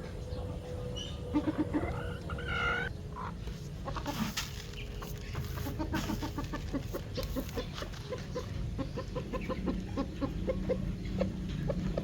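Backyard hens clucking, with a louder call about two seconds in, then a steady run of short clucks, several a second, from about five seconds on.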